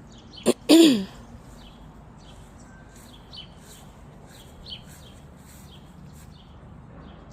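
Small wild birds at backyard feeders chirping with short, scattered calls. About half a second in there is a click, then a brief loud vocal sound from a person, the loudest thing heard.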